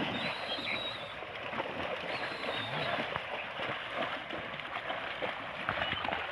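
Cattle wading through a shallow muddy canal: steady sloshing and splashing of water, full of small splashes as their legs push through it.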